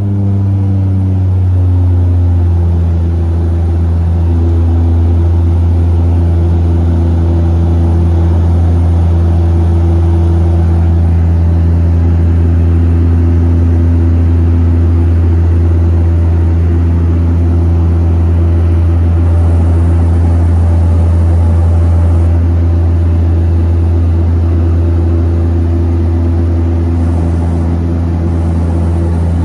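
Turboprop engines and propellers of a twin-engine commuter plane droning steadily, heard inside the cabin during the climb after takeoff. In the first couple of seconds the propeller tones slide down in pitch as power is eased back, then hold steady.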